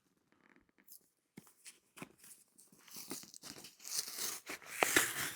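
Packaging being torn open on a cardboard box: a few faint clicks and rustles at first, then tearing and crinkling that grows louder over the last two seconds.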